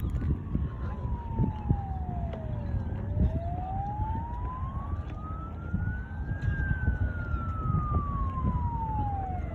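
Police-style siren sounding from a low-flying aeroplane, wailing slowly: it falls for about three seconds, rises for about three and a half, then falls again. A steady low rumble runs underneath.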